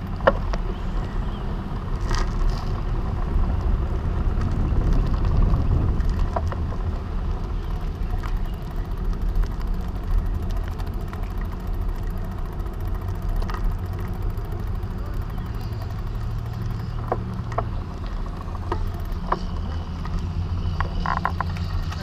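Steady low rumble of wind buffeting a handlebar-mounted camera's microphone and bicycle tyres rolling on asphalt, with a few light clicks.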